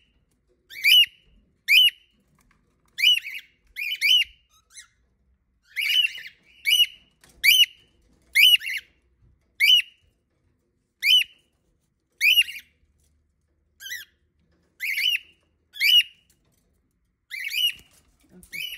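Cockatiel giving loud, repeated contact calls: short whistled shrieks, roughly one a second with uneven gaps.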